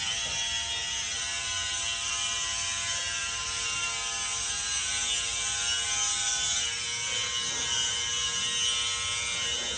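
Electric hair clippers running with a steady, unbroken buzz as they cut through hair.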